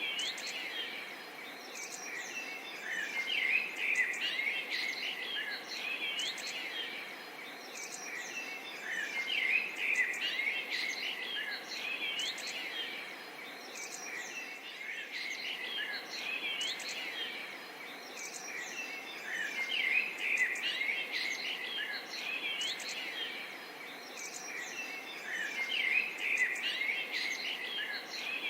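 A dense chorus of many birds chirping and calling over one another, above a steady background hiss. The chorus swells and eases in waves about every six seconds.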